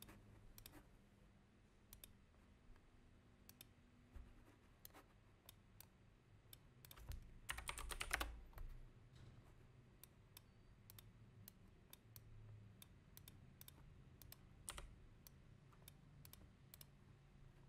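Faint computer keyboard keystrokes and clicks: scattered single clicks, with a quick burst of typing about halfway through.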